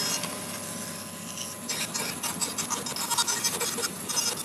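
Bandsaw running, its blade cutting plywood as the blank is turned on a circle-cutting turntable. A rough, uneven rasping of the cut starts about two seconds in.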